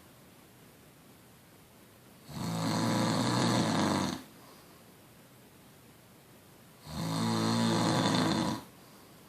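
Snoring: two long, rasping snores of about two seconds each, some four and a half seconds apart, with quiet breathing between.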